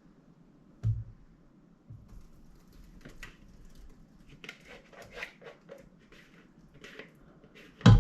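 Mashed blueberries being poured and scraped out of a container into a mixing bowl: two soft knocks, then a run of short, irregular scraping and sloshing noises, and a loud knock near the end as a container hits the bowl or counter.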